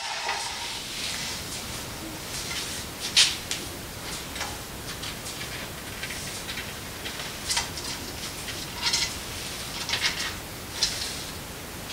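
A pet rabbit's claws scratching and shuffling on a wooden workbench as it is set down and moves about: short, scattered scratchy sounds, the loudest about three seconds in.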